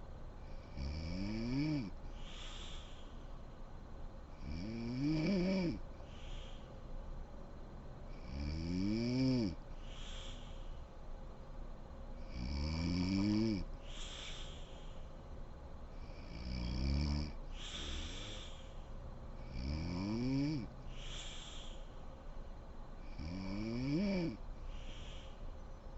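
A sleeping woman snoring evenly, one pitched snore rising in pitch about every four seconds, seven in all, each with a breathy hiss of air.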